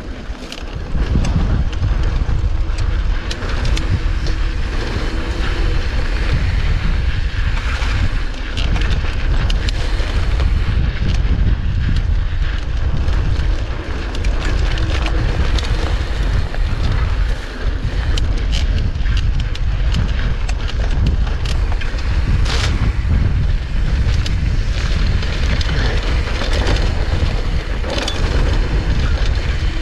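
Wind buffeting the microphone and tyre rumble from a mountain bike descending dirt singletrack at speed, a steady low rumble with occasional sharp clicks and knocks.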